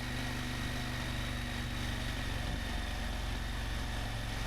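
Motorcycle engine idling steadily at an even level.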